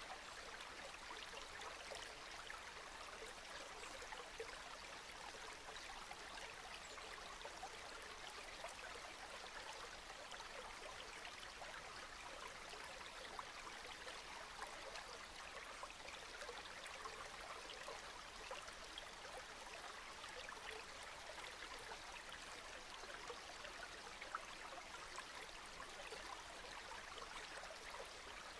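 Steady, soft rain: an even hiss dotted with the small ticks of individual drops.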